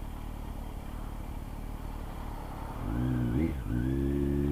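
Kawasaki Z900's inline-four engine under low rumble and road noise, then pulling under throttle about three seconds in, its note rising, dipping briefly and then holding steady and louder.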